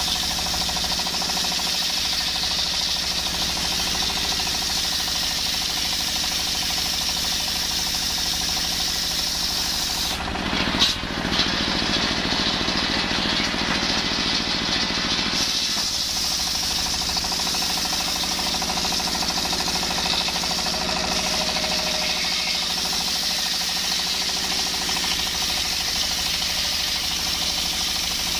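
Table circular saw driven by a single-cylinder stationary diesel engine, ripping a coconut-palm log lengthwise: the engine's steady fast thumping under the blade's loud hissing whine as it cuts. About ten seconds in the cut pauses for a few seconds, with two sharp knocks, then the blade bites into the wood again.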